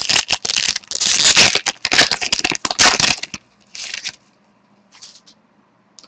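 SPx hockey card pack wrapper being torn open and crinkled by hand: a dense crackling rustle for about three and a half seconds, then a brief crinkle about four seconds in and a fainter one near five.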